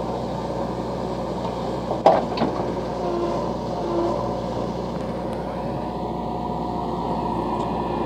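JCB 3DX backhoe loader's diesel engine running steadily under load as the backhoe arm digs, with a sharp knock about two seconds in, followed by a smaller one.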